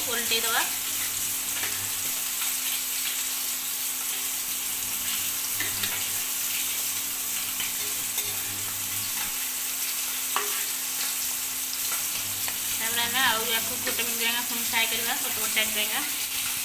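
Fish-roe pakoras deep-frying in hot oil in a pan: a steady sizzle, with a spatula stirring and turning them now and then.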